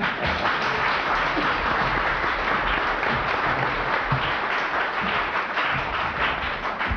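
Audience applauding steadily, the dense patter of many hands clapping.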